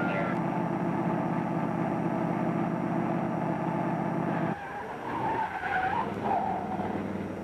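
Car engine running hard at speed in a chase, a steady pulsing drone that drops away abruptly about four and a half seconds in. Tires squeal in a wavering whine for a second or two after the drop.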